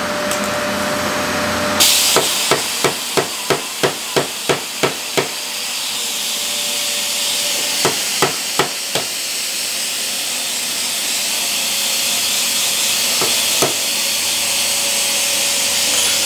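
Hammer blows on steel, driving a bushing into the centre of a disc harrow hub seal. A quick run of about a dozen blows at about three a second, then four more, and two last taps near the end.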